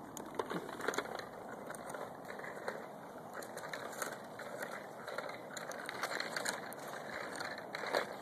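Child's small bicycle with training wheels rolling over gritty asphalt, its tyres and training wheels crunching and rattling with irregular clicks.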